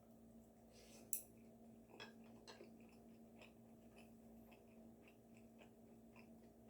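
Faint chewing with small scattered clicks of eating, the sharpest a single click about a second in, over a steady low hum.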